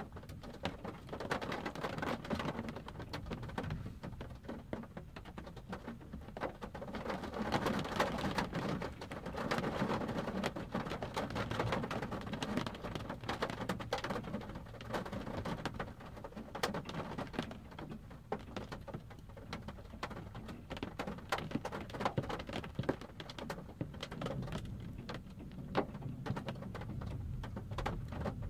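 Rain pattering on a car's roof and windshield, heard from inside the car, with many small drop ticks. Low thunder rumbles swell and fade beneath it, strongest around the middle.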